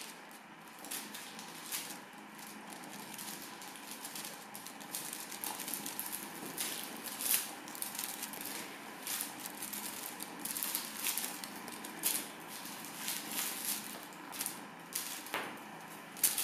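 Soft, irregular rustling and light clicks, with a few sharper ones, from a kitten playing with a feather wand toy on a plush cat-tree hammock, over faint room hiss.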